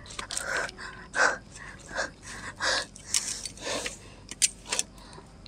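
A woman breathing hard in quick, gasping breaths, about eight in a row, that stop shortly before the end.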